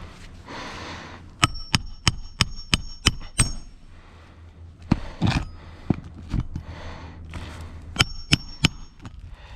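Hammer driving nails into roof shingles: a quick run of about seven ringing metal strikes, a few duller knocks in the middle, then three more ringing strikes near the end.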